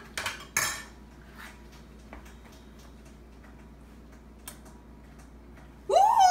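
A couple of sharp metal clinks from a spoon and mess kit just after the start, then a few faint ticks. About six seconds in comes a short, loud exclamation from a boy's voice, rising then falling in pitch.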